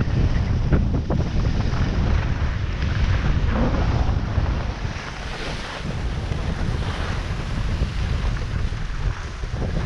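Wind buffeting the microphone of a skier's camera, over the rushing hiss and scrape of skis sliding on packed snow; it eases a little about halfway through.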